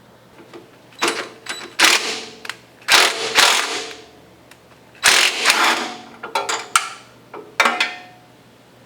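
A wrench spinning nuts off studs on the bulldozer, in about six short, loud bursts of rapid clattering.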